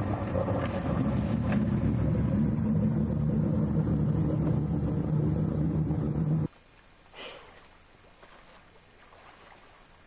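Engine running steadily, close by, until it cuts off abruptly about two-thirds of the way through. Quiet outdoor background follows, with one brief faint sound just after the cut.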